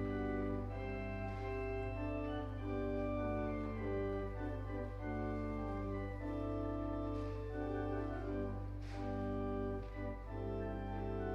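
Slow, solemn instrumental music: held chords that change every second or so over a steady low drone.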